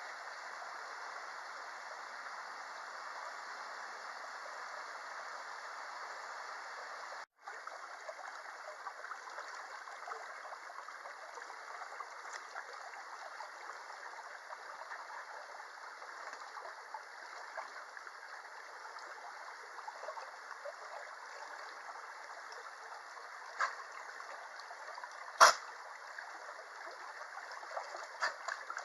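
Mountain stream running, a steady rush of water. It drops out for an instant about a quarter of the way through, and near the end there are a few short sharp knocks, one of them much louder than the water.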